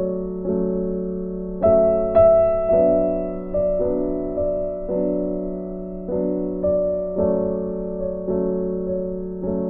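Background music: a slow, gentle piano piece, notes and chords struck about once a second and left to fade.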